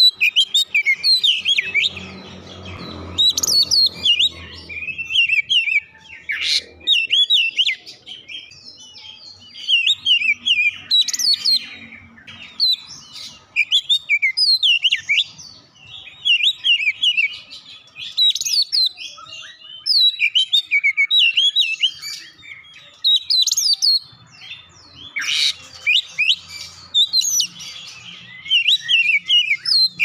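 Caged Oriental magpie-robin (kacer) singing: a steady run of short, quick phrases of high whistled and chattering notes with brief pauses between them, a song filled with mimicked cinereous tit (gelatik batu) calls.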